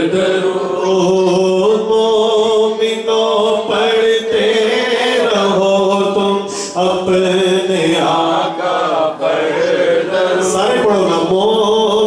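A man reciting a naat, an Urdu devotional song in praise of the Prophet, chanting solo into a microphone in long, held, wavering notes.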